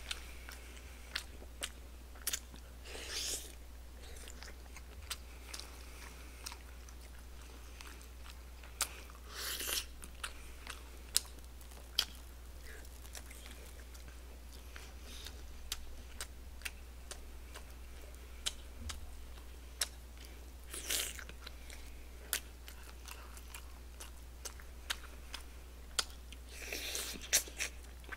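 Close-up eating sounds: a person biting and chewing barbecued pig's trotter (jokbal) off the bone, with many short wet clicks and smacks and a few longer, louder bites.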